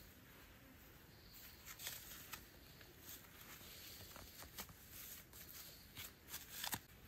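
Faint rustling and light clicks as a caught wild hen is handled and its wing spread out; the loudest rustles come about two seconds in and near the end.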